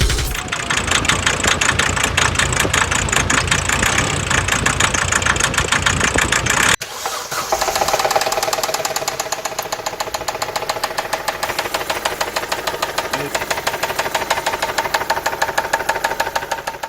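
Diesel engine running with a rapid, even knocking. About seven seconds in the sound breaks off briefly and the knocking resumes with a steady tone over it.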